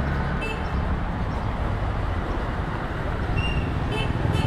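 Steady low rumble of motor traffic in a busy street, with a few short high chirps about half a second in and again near the end.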